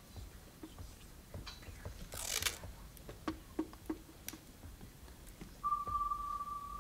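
Faint stage noises from plastic bags and tape being handled: scattered small clicks and a short rustle about two seconds in. Near the end a steady high tone starts and holds.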